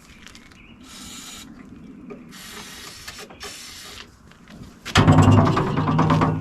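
Aluminum side-by-side door being handled and fitted: a few short scraping rubs, then a louder rattling buzz lasting about a second and a half near the end.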